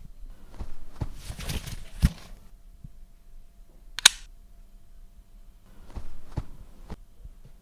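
Home-made foley effects: scattered soft knocks, taps and rustles made with props, with one sharp high click about four seconds in.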